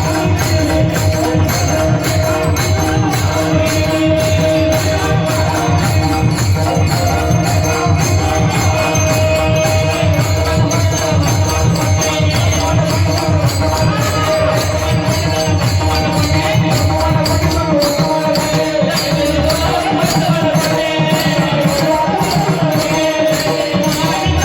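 Marathi devotional kirtan music: a voice singing a melody over a steady held tone, with small jingling percussion keeping an even beat.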